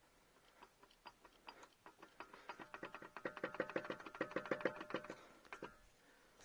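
Opel Astra J front drive shaft being rocked back and forth by hand, clattering with a fast run of metallic knocks that build up around the middle and stop near the end. The rattle is free play in the drive shaft or hub, which the owner suspects may come from a loosened hub nut.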